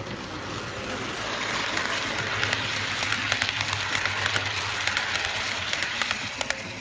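Model diesel locomotive and coaches rolling past on model railway track: a rising then fading rush of metal wheels on rail with a low motor hum and rapid light clicking over the rail joints, loudest as the train passes close by.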